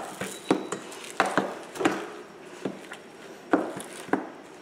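Potato masher mashing boiled potatoes in a stainless steel bowl: a run of sharp, irregular knocks about every half second as the masher strikes down through the potatoes.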